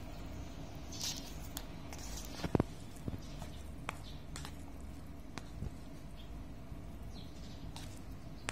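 A fork stirring and lifting saucy black bean instant noodles in a bowl: soft wet squishing with scattered clicks of the fork against the bowl. The loudest is a quick double click about two and a half seconds in.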